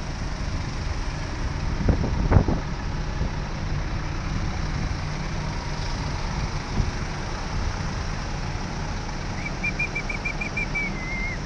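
Steady low rumble of idling diesel machinery, with a couple of knocks about two seconds in. Near the end a small bird gives a quick run of high chirps.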